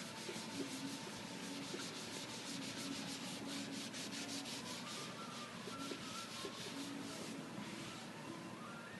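A dye-soaked sponge rubbed quickly back and forth over aniline leather, a scratchy rubbing in rapid strokes, several a second, that dies away about a second before the end as the dye is worked into the cushion.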